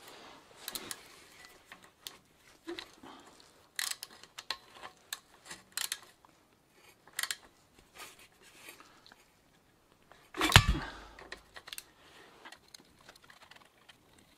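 Socket ratchet undoing a rusty bicycle crank bolt: scattered clicks and small metal knocks of the tool, with one loud clunk about ten and a half seconds in. The bolt turns surprisingly loose.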